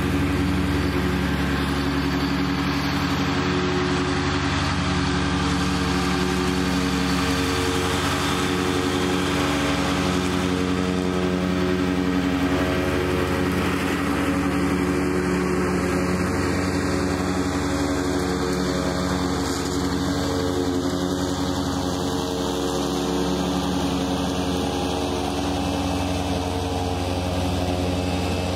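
Kubota B2601 compact tractor's three-cylinder diesel engine running steadily under mowing load, with the mower deck cutting tall grass as the tractor drives past.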